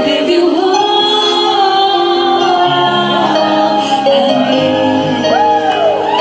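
A woman singing into a microphone over an instrumental backing track, her voice wavering and sliding through quick runs on held notes.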